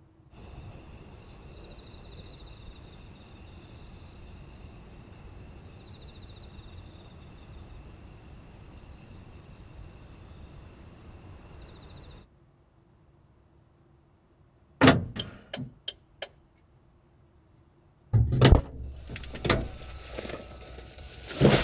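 Night insects chirring steadily with a high pulsing trill, which cuts off suddenly. After that, a few sharp clicks and a thud as the light truck's cab door is unlatched and opened, then the insects again with rustling.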